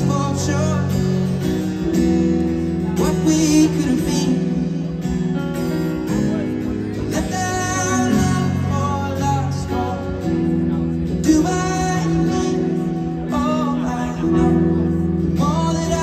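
Live concert song heard from within a stadium crowd: a male voice singing a slow melody over a strummed acoustic guitar, amplified through the venue's sound system.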